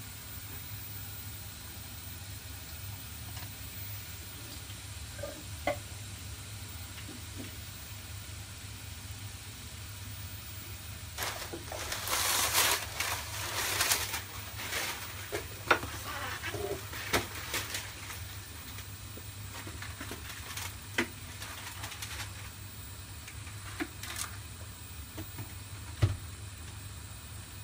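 Sugar syrup in a saucepan coming up to the boil over a gas flame, bubbling and sizzling, with a stretch of louder crackling hiss and pops from about eleven seconds in, over a steady low hum. The syrup is only just starting to boil and is not yet hot enough for the nuts.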